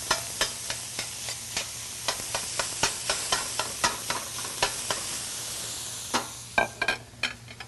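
Ground meat sizzling in a hot stainless steel sauté pan while metal tongs break it up, with frequent light clicks of the tongs against the pan. About six seconds in the sizzle falls away and a few louder clinks follow.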